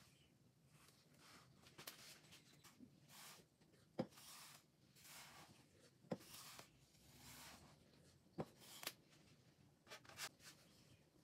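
Quiet kitchen handling sounds as a sponge cake layer is set in place and buttercream is dolloped onto it: soft rubs and scrapes with several light, sharp clicks, the sharpest about four seconds in.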